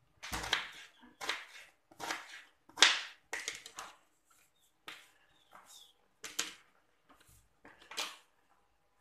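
Kitchen knife peeling the ridged skin off a luffa gourd (petola) on a plastic cutting board: a series of short scraping strokes, about one or two a second.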